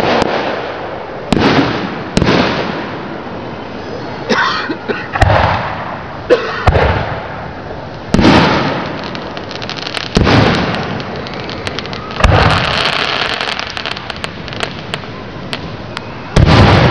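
Aerial firework shells bursting overhead, about eight loud echoing booms one to four seconds apart, with a stretch of crackling after the burst about twelve seconds in.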